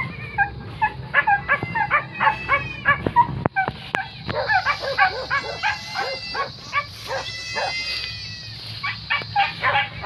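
Many short, high animal cries in quick succession, several a second.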